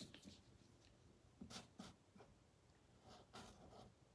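Faint scratchy strokes of a Sharpie marker writing on paper: a few short separate strokes, spread through the stretch.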